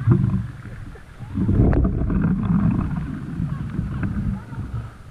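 Jets of water spraying and splashing onto the camera's waterproof housing, heard as a muffled low rumble in bursts, the longest from about a second and a half in until past four seconds.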